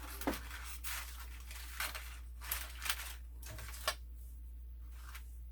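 Paper and craft pieces being handled and laid out on a table: scattered rustles and a few short taps, over a steady low hum.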